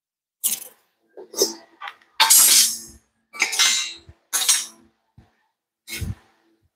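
Steel suspension coil springs being set down and stacked on a concrete floor, clanking against each other: about seven separate metal knocks at an uneven pace, several with a short ring after them.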